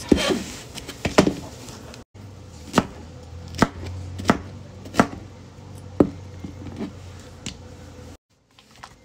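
Kitchen knife chopping pineapple on a plastic cutting board: sharp knocks of the blade striking the board, roughly one a second at an uneven pace.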